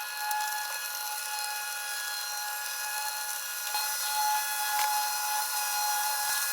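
Small electric motor of a homemade mini stirring machine running steadily, with a constant whine and a rough, noisy rattle.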